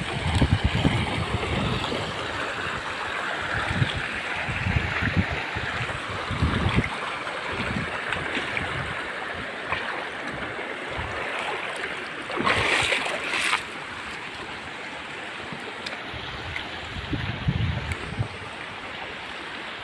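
Shallow river water running over rocks, a steady rushing hiss, with wind gusting on the microphone in the first several seconds and again near the end. A brief, louder rush of noise comes about twelve seconds in.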